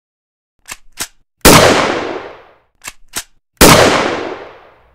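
Gunshot sound effect, twice: each shot comes after two quick clicks and dies away in a long echoing tail.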